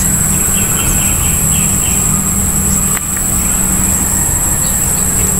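Steady low rumble of wind buffeting the microphone, with a constant high-pitched insect drone. A few short bird chirps come in the first half, and one faint sharp click about three seconds in.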